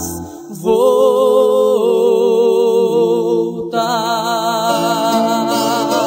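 Music from a sung song with acoustic guitar: after a brief dip, a long held note wavering with vibrato comes in about a second in and moves to a new note a little past halfway.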